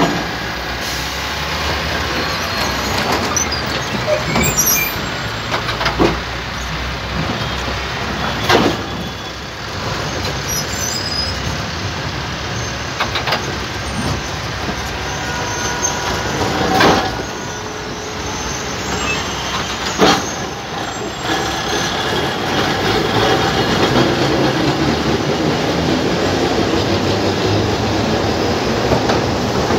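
Alexandria tram cars rolling past on street tracks: a steady rumble of wheels on rail, with a sharp knock every few seconds as the wheels cross rail joints.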